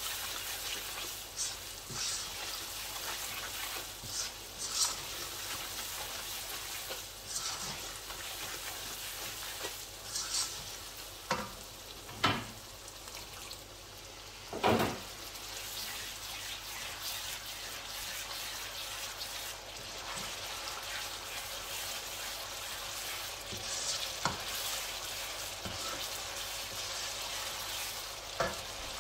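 Spice masala sizzling in hot oil in a wok, with the spatula stirring and scraping through it. A few short clicks come through the sizzle, and two louder knocks of the spatula against the pan come about halfway through.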